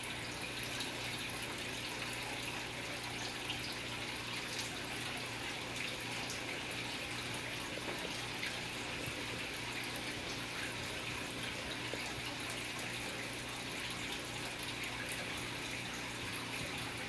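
Steady trickle of running water with a low steady hum underneath.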